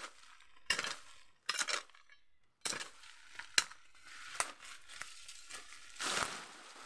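Dry stalks and undergrowth being chopped and pulled clear, with sharp strokes about once a second and rustling, scraping noise, and a longer rustling scrape near the end.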